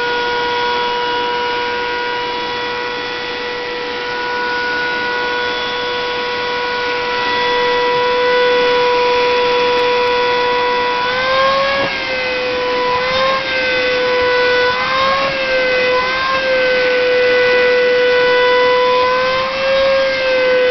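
Vacuum cleaner running with a steady whine while it is used to vacuum a cat. About halfway through, the pitch starts wavering, rising briefly several times before settling back.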